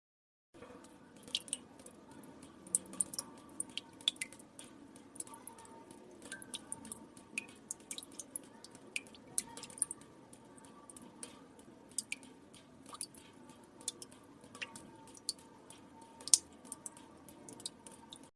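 Water drops falling into water, starting about half a second in: irregular small plinks, several a second, over a faint steady background hiss.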